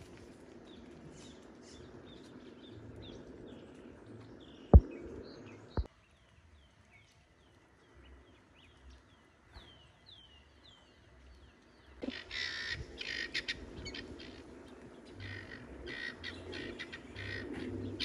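Outdoor birds chirping, a string of short quick calls. There are two sharp clicks about five seconds in, and from about twelve seconds a louder, harsher stretch of noise.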